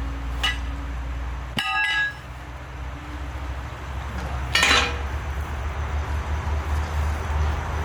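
Metal clinking and clanking: a light clink, then a ringing metal strike about one and a half seconds in, and a louder clank about halfway through, over a steady low rumble.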